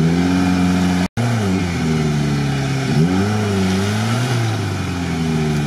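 Suzuki Samurai engine straining in deep swamp mud, its revs rising and falling several times as it tries to pull free, with a brief break about a second in.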